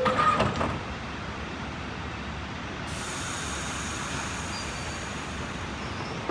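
R68 subway car doors closing with a cluster of knocks and clunks at the start, then the stopped train's steady low rumble. About halfway in, a high air hiss joins, typical of the air brakes releasing before departure.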